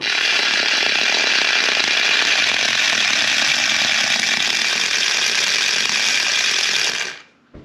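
Hot Wheels RC Cybertruck, a 1/64-scale remote-control toy car, spinning in circles on a wood floor, its tiny electric drive motor and gears running steadily at full speed. The sound stops abruptly about seven seconds in.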